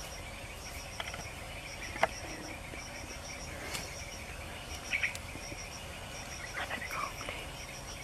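Forest ambience: a high-pitched insect chirping steadily in quick groups of three, with a few short animal calls over it, the loudest about five seconds in and again near seven seconds. A single sharp click sounds about two seconds in.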